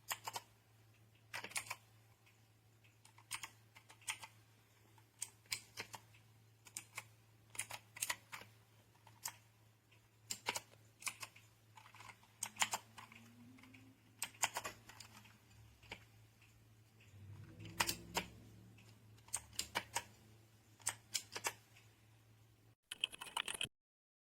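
Typing on a Newmen GM610 60% mechanical keyboard: irregular key clicks, often several in quick succession, over a faint steady low hum. The sound cuts off abruptly near the end.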